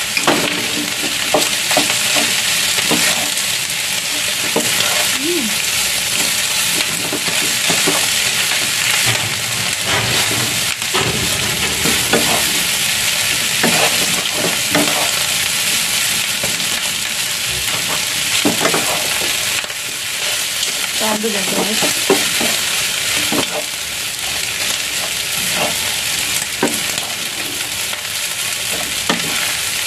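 Shredded chicken and cooked white rice sizzling in a hot frying pan while a wooden spatula stirs and scrapes through them. There are frequent light knocks of the spatula against the pan over a steady frying hiss.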